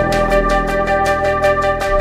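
Background music: an instrumental track with sustained melodic notes over a steady beat.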